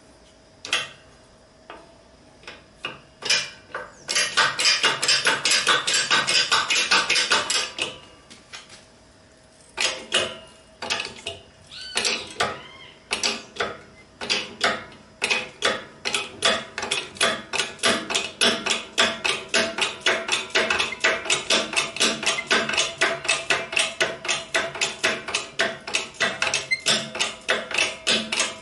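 Repeated hammer blows on metal, knocking a V-belt pulley off an electric motor's shaft. A few single knocks, a dense flurry of fast blows from about four to eight seconds in, a short pause, then steady strikes about four a second from about ten seconds in.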